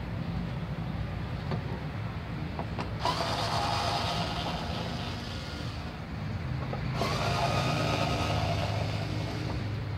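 Cordless electric screwdriver whirring in two runs of about three seconds each, backing screws out of a TV's plastic back cover, over a steady low hum.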